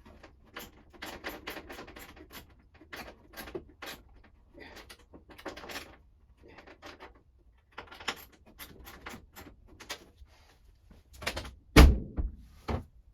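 A long run of small clicks and taps, hand tools and fittings being worked on a car door, then a heavy thump near the end and a lighter one about a second later as the steel door is swung shut on its new billet hinges. The door doesn't close properly: it sits on top of the rear quarter panel.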